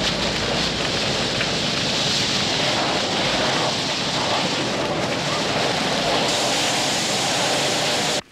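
Large wood fire burning while fire hoses spray water onto it: a steady rushing noise of flames and spray, cutting off abruptly near the end.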